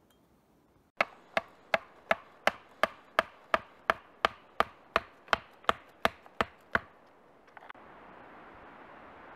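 Axe chopping wood: a fast, even run of about seventeen sharp wooden strikes, close to three a second. After a couple of light knocks it gives way to a steady outdoor hiss.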